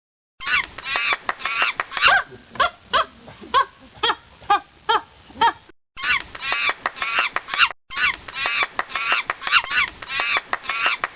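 Geese honking, many short calls in quick succession, with steadier, evenly spaced honks of about three a second in the middle stretch; the recording cuts off abruptly twice and resumes.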